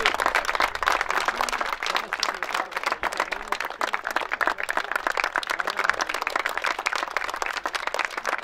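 Applause: a group of boys clapping continuously, many hands at once.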